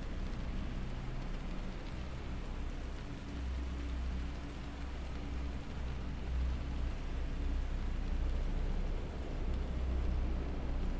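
Binaural beats meditation track: steady low tones that swell and ease slowly, under an even rain-like hiss.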